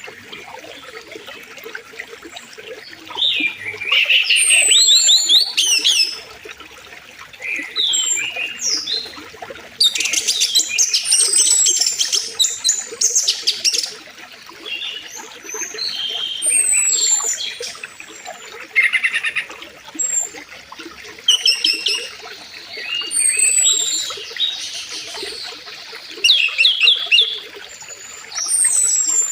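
Several songbirds chirping and trilling in repeated bursts, with high falling whistles among them, over the steady rush of a flowing river.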